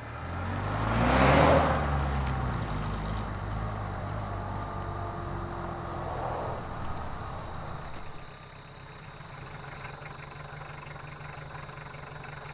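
A Volkswagen Rabbit pickup drives past close by, loudest about a second and a half in, its engine note dropping in pitch as it goes by. It then slows and pulls over, and after about eight seconds settles to a steady idle.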